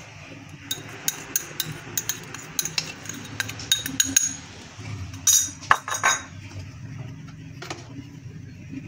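Light glassy clinks and taps as salt is tipped from a small glass bowl into an aluminium pressure cooker pot, quick and scattered for the first four seconds, with a louder cluster of clinks around five to six seconds in.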